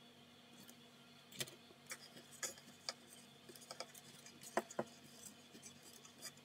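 Faint, irregular small clicks and taps of wire and connectors being handled and pressed onto a speaker driver's terminals inside a plastic enclosure, a few sharper ones about four and a half seconds in.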